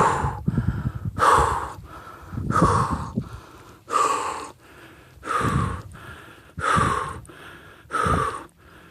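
A hiker breathing heavily close to the microphone after climbing the final steep stretch: about seven hard, gasping breaths in a steady rhythm, roughly one every second and a half.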